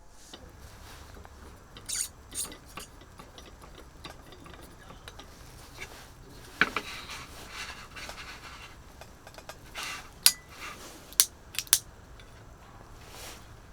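Small hard objects being handled: scattered clicks, clinks and rubbing over a low steady rumble, with three sharp clicks near the end.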